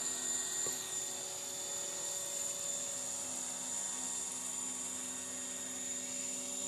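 Align T-Rex RC helicopter running steadily with a high whine as it flies low and descends to land.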